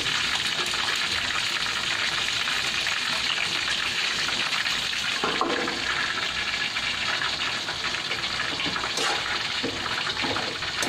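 Pork belly and chicken frying in oil in a wok, a steady sizzle, with a short clatter of a metal pot lid about five seconds in.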